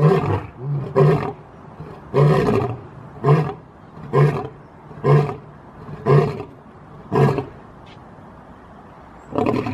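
Lion roaring in a series of short grunting calls, about one a second, with one longer call about two seconds in and a short pause before a last call near the end.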